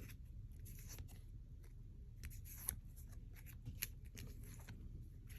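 Faint clicks and light scraping of Pokémon trading cards being handled and shown one after another, over a low steady room hum.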